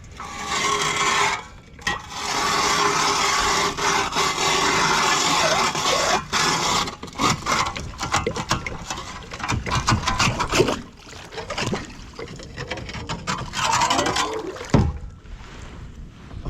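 Ice auger drilling through thin lake ice: a steady grinding for several seconds, then scattered scraping and knocking, with one more short burst of grinding near the end.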